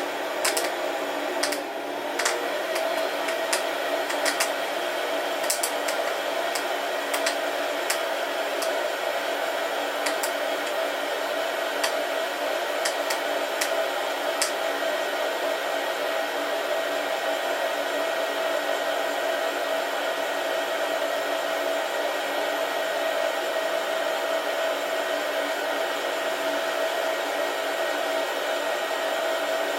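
Beanbon coffee roaster's hot-air blower running steadily with a steady hum. Over the first half come scattered sharp pops of the beans cracking as the roast develops, which die away about halfway through.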